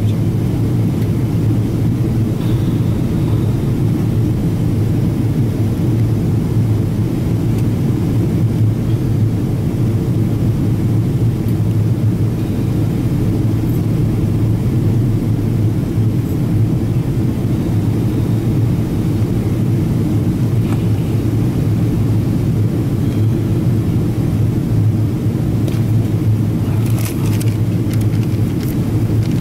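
Steady low cabin rumble of a Boeing 777-200ER in flight, engine and airflow noise heard inside the passenger cabin, with a few light rattles near the end.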